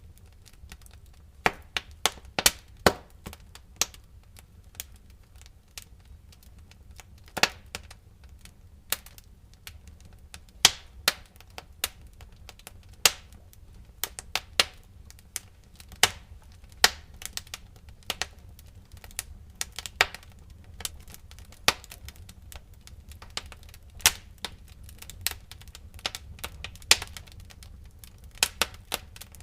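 Wood fire burning in a fireplace, crackling with irregular sharp pops and snaps over a low, steady rumble of the flames.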